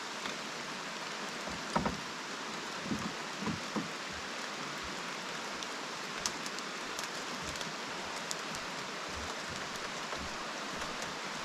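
Steady rain falling, an even hiss, with a few dull thumps in the first few seconds.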